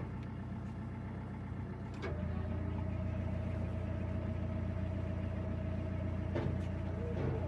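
Narrowboat's diesel engine running steadily at cruising speed, a low even hum that gets louder about two seconds in.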